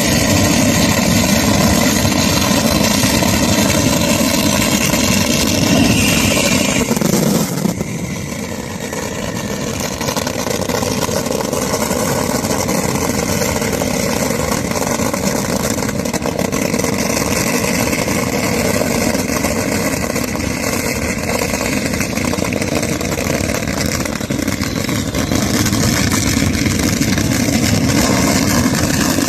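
A large engine running steadily; its pitch drops and it eases off about seven to eight seconds in, then it runs on and slowly builds again toward the end.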